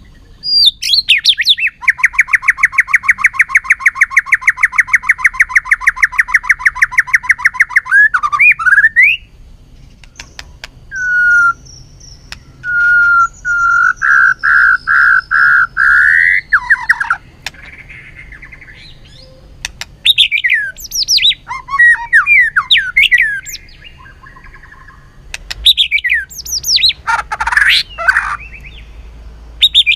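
White-rumped shama in its fired-up fighting song: first a fast rattle of many repeated notes lasting several seconds, then a run of rising whistled notes, then quick, varied song phrases.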